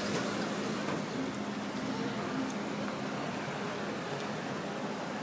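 Steady city street traffic noise with a faint, even low hum.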